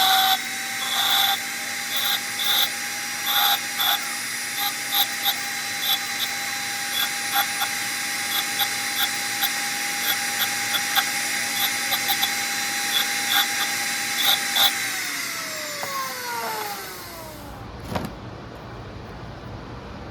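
Electric grinder running at speed, with repeated short bursts as steel is pressed against it. About fifteen seconds in it is switched off and winds down, and a single knock follows.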